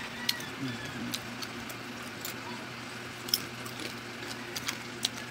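Crispy fried sweet potato (kamote) chips crunching as they are chewed: irregular sharp crackles, a few a second at times.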